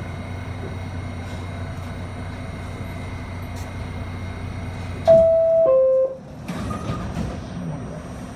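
Steady hum inside an R68A subway car, then about five seconds in the loud two-tone door chime, a higher note falling to a lower one, which warns that the doors are about to close. A sharp clatter follows about a second later as the doors shut.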